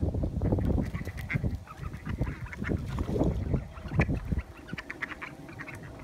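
Waterfowl honking and quacking in an irregular run that drops off about four and a half seconds in, leaving a scatter of short high notes.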